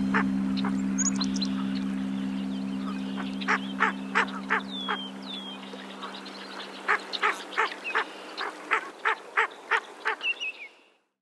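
Birds calling: a series of short, repeated calls in two runs, the second longer and denser, with a few thin high chirps. A held music chord fades out over the first half, and everything cuts off just before the end.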